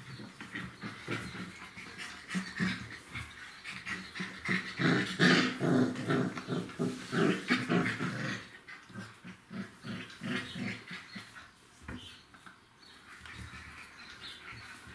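Golden retriever puppies play-fighting, giving a quick run of short growls and yaps, loudest in the middle of the scuffle and tapering off toward the end.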